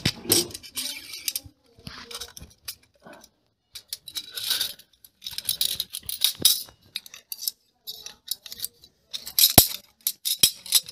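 Thin metal rods of a portable grill grate clinking and scraping as they are fitted one by one into a metal end tube, in irregular bursts, with two sharp metal clicks near the end.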